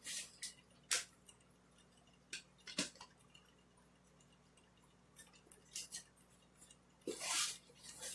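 Scattered light clicks and taps of things being handled, then, about seven seconds in, a longer rustling of crumpled brown kraft packing paper as a hand digs into the cardboard box.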